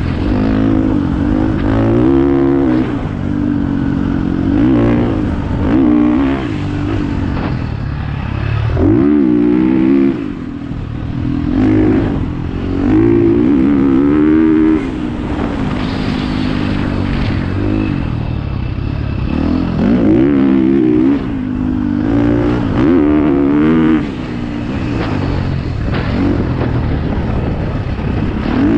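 Dirt bike engine running hard, its pitch rising and falling every second or two as the throttle is worked on and off. The engine note drops away briefly a few times.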